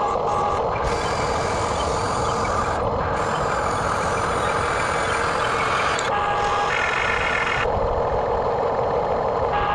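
Radio-controlled backhoe excavator model running: a loud, steady mechanical whine and hiss, with steady tones that come and go and a brief change in pitch about seven seconds in.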